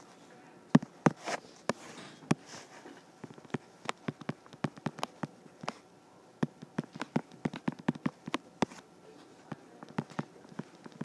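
Stylus tapping and clicking against a tablet screen while writing by hand: irregular sharp ticks, several a second.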